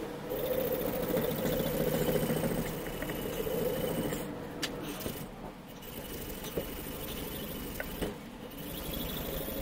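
Rust being scrubbed by hand off a steel rod clamped in a bench vise: a continuous scraping rasp for the first few seconds, then quieter with a few small clicks.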